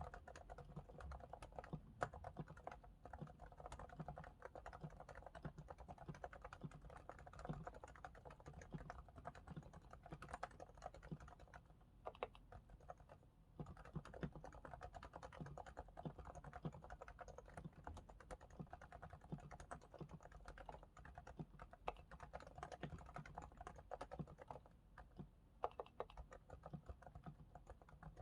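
Realforce R2S keyboard with 45 g silent, equal-weight Topre switches being typed on continuously, each keystroke a quiet, damped click. The sliders are lubricated with Krytox 105 and the stabilizers with Krytox 205. The typing breaks off briefly twice near the middle.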